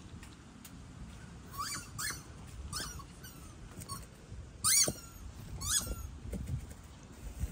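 Prairie dogs giving about half a dozen short, high chirps, the loudest about two-thirds of the way through.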